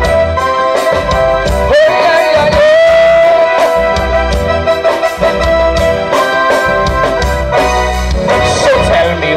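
Live band playing an instrumental break of gospelypso (gospel calypso) music: drum kit, keyboards and guitar over a steady beat. About two seconds in, a lead note slides up and is held for about a second.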